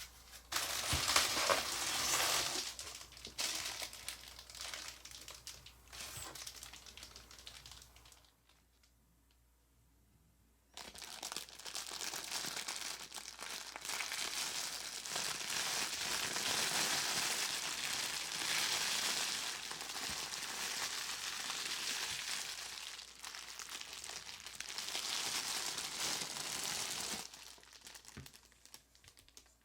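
Packaging being unwrapped and handled, crinkling in bursts, then after a short pause a long stretch of near-continuous crinkling that dies away near the end.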